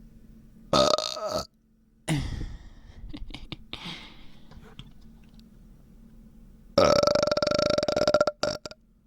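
A person burping loudly several times: a short burp about a second in, a lower one at about two seconds that trails off, then a long, steady burp lasting about a second and a half near the end.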